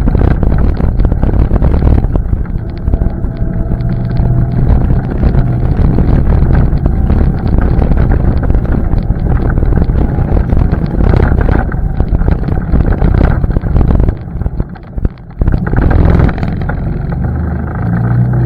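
ATV engine running loud as it is ridden, with a brief dip in level about three-quarters of the way through.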